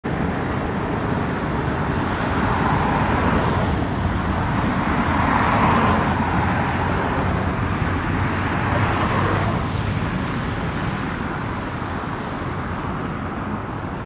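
Steady road traffic noise, swelling louder a few times as vehicles pass.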